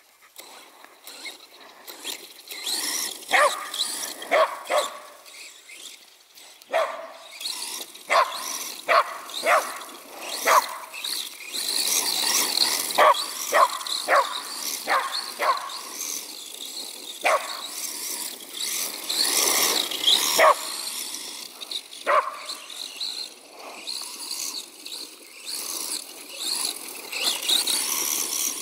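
Shetland sheepdog barking over and over while it chases, short sharp barks often coming two or three in quick succession, over the steady high hiss of the small RC car running across the grass.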